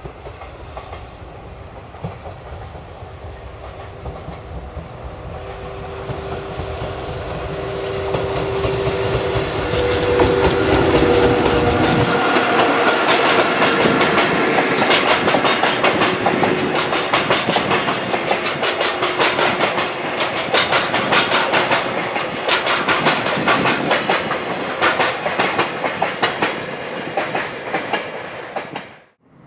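EF81 300-series electric locomotive (EF81 303) hauling a container freight train past. The sound builds over the first ten seconds with a steady hum as it nears, then a long run of container wagons clatter over the rail joints in a quick, even clickety-clack, which cuts off sharply near the end.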